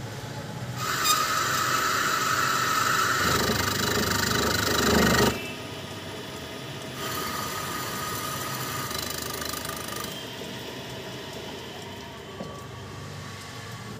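Metal lathe facing a steel spur gear held in a four-jaw chuck: a loud cut with a steady whine starts about a second in and stops abruptly about five seconds in. The lathe then runs on more quietly, with a fainter whine for a few seconds.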